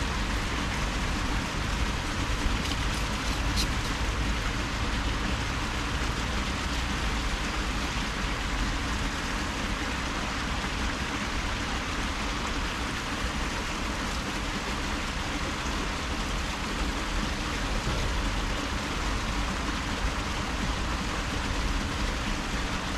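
Steady rush of flowing canal water, an even noise with a low rumble underneath and no breaks.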